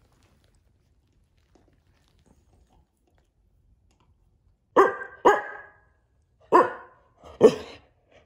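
After a few seconds of near silence, a dog barks four times: two quick barks, then two more about a second apart.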